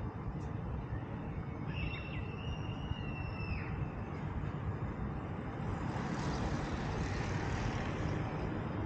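Steady low rumble of city traffic. About two seconds in, a thin, steady high whistle-like tone lasts for about two seconds, and a hiss swells near the middle.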